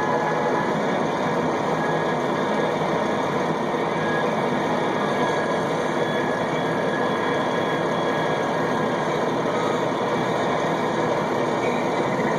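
Caterpillar D8 bulldozer's diesel engine running steadily under load as the dozer rips hard-packed dirt, a loud, even machine noise with a faint steady whine over it.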